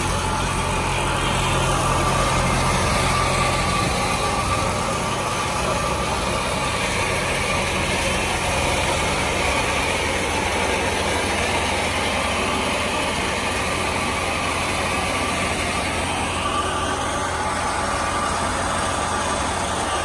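Mahindra 475 DI tractor's diesel engine running steadily as it drives a paddy thresher, with the thresher's drum churning through rice sheaves as they are fed in. The result is a continuous mechanical drone.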